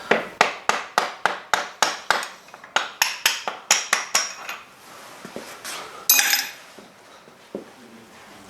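A series of rapid hammer taps, about three or four a second, driving the front axle out through a piece of metal set against its threaded end so the thread isn't damaged. About six seconds in comes a single loud, ringing metal clink.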